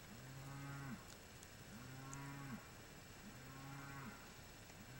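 Faint, low calls from an American bullfrog, four in a row, each under a second long and about a second and a half apart.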